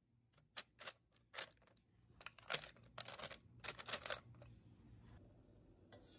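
Parchment paper crinkling and rustling, with light clicks, as small whole fish are laid into a paper-lined air fryer basket with metal chopsticks. About four and a half seconds in, a faint steady hiss of a pot of anchovy broth boiling takes over.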